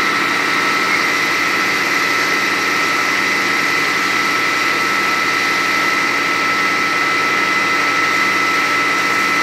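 Fire engine running its water pump to supply the hoses: a steady engine drone with a constant high whine.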